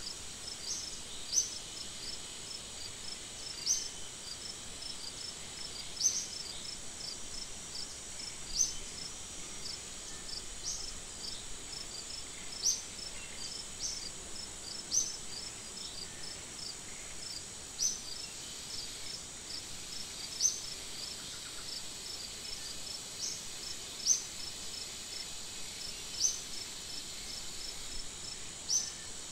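Insect chorus: a steady high-pitched drone with rows of quick, faint ticking chirps, and a sharper, louder chirp about every two to three seconds.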